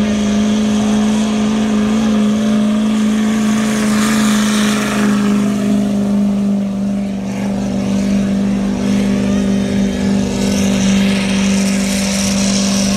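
Ford 6.7 L Power Stroke turbo-diesel V8 pickup engine pulling a weight-transfer sled under full load, held at high, steady revs. It is loud and even in pitch the whole pull.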